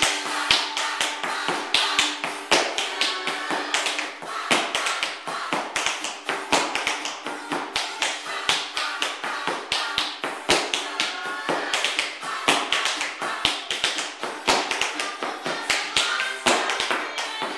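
Metal taps on heeled tap shoes striking a wooden floor in quick, rhythmic tap-dance steps, with recorded music playing underneath.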